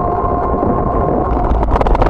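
Wind and road noise picked up by a bicycle-mounted camera while riding, with a steady high whine. Near the end, a run of sharp rattles as the bike goes over rough, patched pavement.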